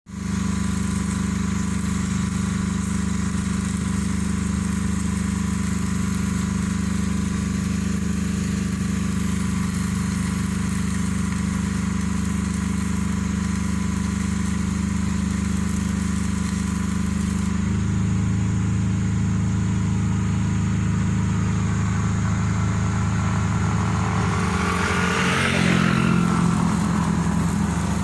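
Excavator's diesel engine running steadily. Its note shifts about two-thirds of the way in, and near the end there is a brief surge with a rising and falling whine.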